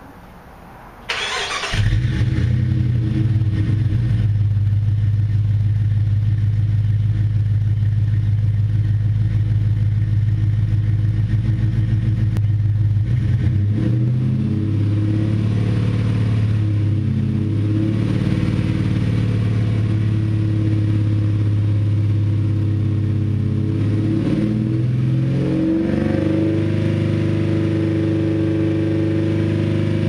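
A 2004 Jeep Grand Cherokee's 4.7-litre V8, breathing through Tri-Y headers and a Flowmaster muffler, is cranked and fires about two seconds in and idles. About halfway through it steps up to a steady 2000 rpm, and near the end it rises again to a steady 3000 rpm, the exhaust note climbing in pitch with each step.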